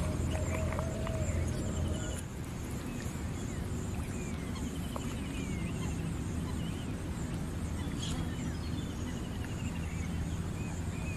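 Birds calling: scattered short chirps and a few quick descending trills, over a steady low rumble.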